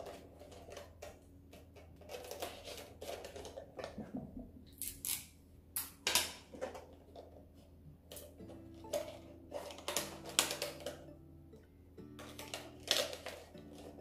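Crackles and clicks of a cut plastic PET bottle and a paper plate being handled and fitted together, with soft background music coming in about halfway.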